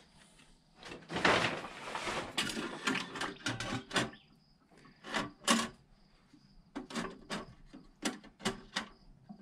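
A wire basket of metal HEUI injector parts clinking and rattling as it is handled and set into a stainless-steel ultrasonic cleaner tank, a string of sharp knocks with a busier clatter about a second in.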